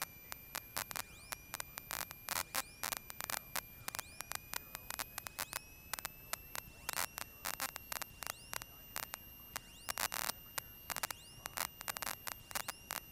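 Faint crackling static with irregular clicks and a thin steady whine that rises slightly in pitch: electrical noise on a Cessna 172's intercom and radio audio feed between transmissions.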